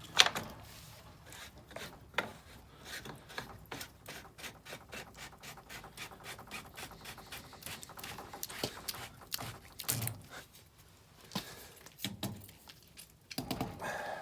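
Hands working with tools and parts: an irregular run of small clicks, taps and scraping, with a sharp knock right at the start.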